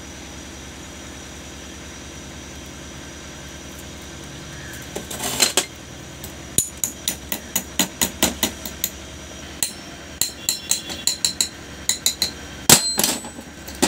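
Small steel parts being fitted into a SAME 503 tractor's hydraulic distributor valve block: a run of light metallic taps and clinks, several a second, starting about five seconds in, with one louder knock near the end.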